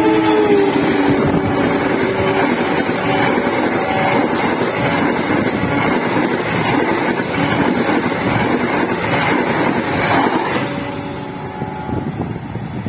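A KAI diesel locomotive and its passenger coaches pass close at speed. The locomotive's horn, still sounding at the start, drops in pitch as the locomotive goes by and dies away within a few seconds. The coaches' wheels then clatter and roar over the rails for about ten seconds before the noise falls off as the train moves away.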